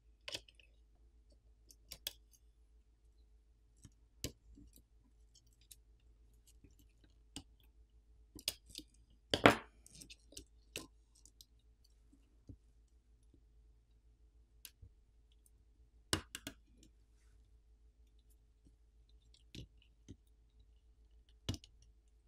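Scattered faint clicks and taps as a pry tool and fingertips work on a smartphone main board, unclipping its coaxial antenna cable connectors. The loudest click comes a little over nine seconds in.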